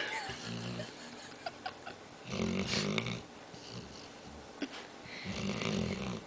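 A dog snoring while half awake, a rattling snore about every three seconds: a weak one near the start, then two stronger ones.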